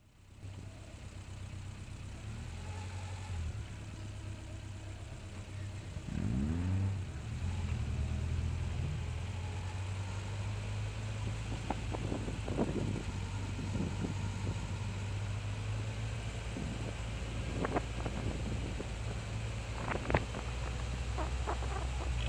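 Caterham race car engine idling with a steady low note, with a short blip of revs about six seconds in and several more quick blips later on.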